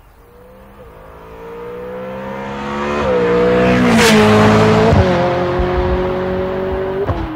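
A car engine revving as it accelerates through the gears, its pitch climbing and then stepping down at each gear change. It grows louder to a peak with a rushing pass about four seconds in, then eases off.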